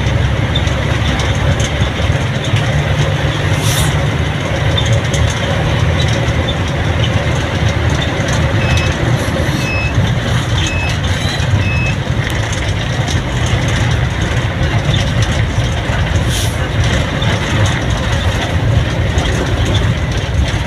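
Steady low rumble of a vehicle travelling along a road: engine, tyre and wind noise. About nine to twelve seconds in come a few short high beeps.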